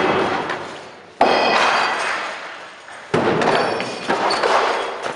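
Thuds and clacks of training swords and blows during historical-fencing sparring, with two sudden loud impacts about a second in and about three seconds in, each dying away slowly.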